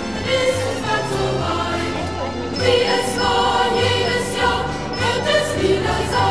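Choral music: a choir singing over a bass line that steps from note to note, without a break.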